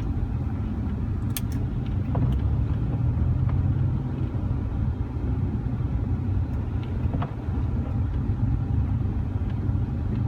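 Car driving, heard from inside the cabin: a steady low rumble of engine and road, with a few faint ticks scattered through.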